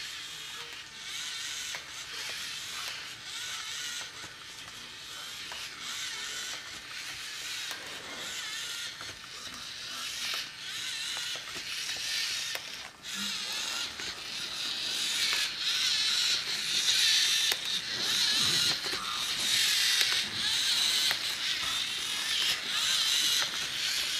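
LEGO Mindstorms NXT Alpha Rex robot walking: its servo motors and plastic gear trains whir and grind, with repeated clicks and creaks from the moving legs. The whirring grows louder in the second half.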